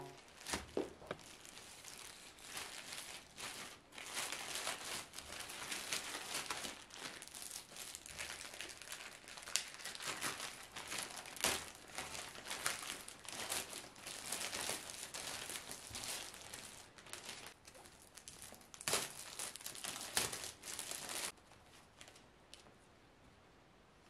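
Plastic mailer bag crinkling as hands pull it open, a dense run of crackles with sharp snaps, cutting off suddenly near the end.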